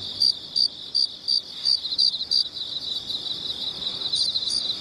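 Crickets chirping: a steady high chirring with louder, evenly spaced chirps about three a second.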